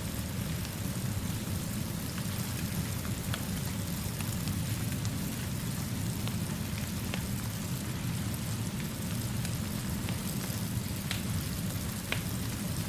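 Steady rain mixed with a low-burning fire, with a low rumble underneath and a few sharp crackles scattered through.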